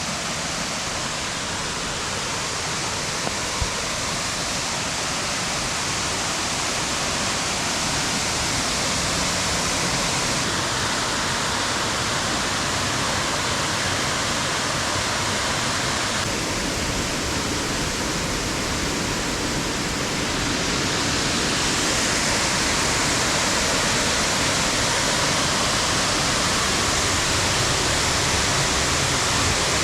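A steady rushing noise that grows slightly louder about two-thirds of the way through.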